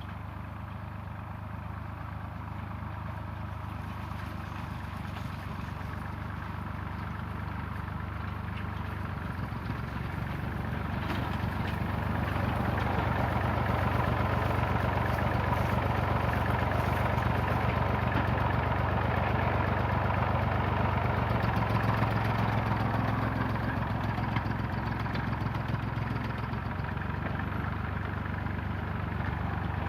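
Small Ferguson tractor's engine running steadily. It grows louder about ten seconds in and eases off a little past twenty seconds.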